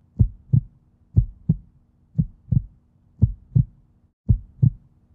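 Heartbeat sound effect: five slow lub-dub double thumps, about one beat a second, over a faint steady hum.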